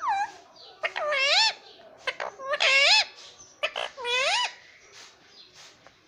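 Indian ringneck parakeet giving three loud calls, each sliding down and then up in pitch, with a few short clicks between them.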